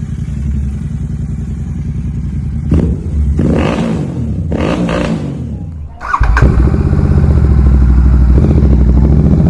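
Royal Enfield Super Meteor 650's parallel-twin engine running, revved up and down in the first half, then running louder and steady after an abrupt change about six seconds in.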